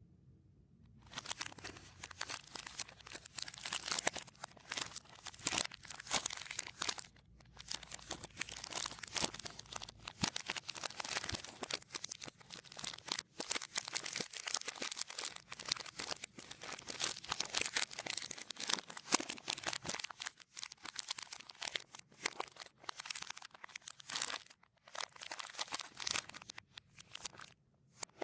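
Plastic snack wrappers crinkling and rustling, played in reverse, starting about a second in with a few brief pauses.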